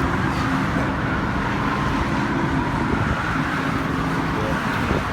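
Steady road and traffic noise: an even rumble and hiss of vehicles on a roadway, with no distinct event standing out.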